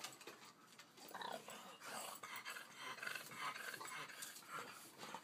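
French bulldog digging and scratching at a fabric patio cushion, growling in play.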